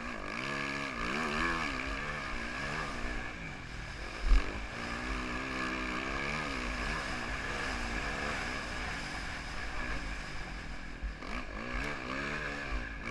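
2014 Yamaha YZ450F's single-cylinder four-stroke engine revving up and falling back again and again as the bike is ridden. There is a sharp thump about four seconds in.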